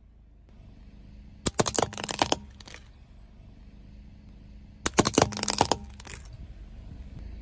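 A car tyre rolling over small plastic objects, which crack and crunch in two bursts of sharp snaps, about a second and a half in and again about five seconds in, over a low steady hum.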